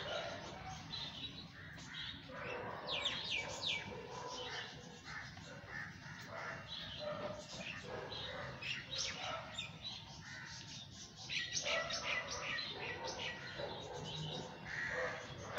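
Birds chirping and calling: scattered short chirps, some quick rising notes.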